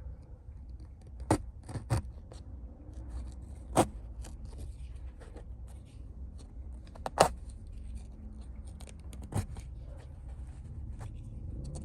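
Scissors snipping and cutting foam and upholstery out of a car seat: about six sharp snips at irregular intervals, with lighter ticks and scraping between, over a low steady hum.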